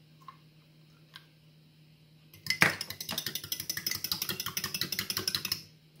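Fork beating egg and milk in a glass measuring cup: rapid clicking of the tines against the glass, starting about two and a half seconds in and stopping just before the end. Before that, only a couple of faint clicks.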